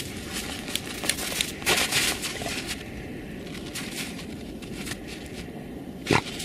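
Dogs digging in snow: paws scratching and crunching through snow and dirt in quick irregular strokes, loudest about two seconds in and once more near the end.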